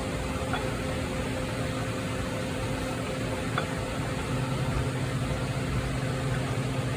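A steady mechanical drone with a hum and hiss, like a fan or blower running, with a light click about three and a half seconds in.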